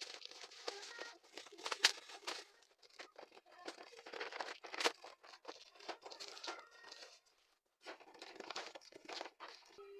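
Packaging of a toy train set being torn open and crinkled by hand, a crackling rustle broken by sharp snaps, with a brief pause just past halfway.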